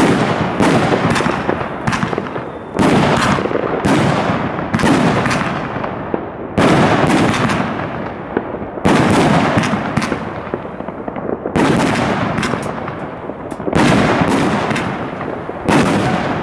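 Consumer fireworks cake firing aerial shots in sequence: about nine loud bangs, one every one to two seconds, each fading away over a second or more.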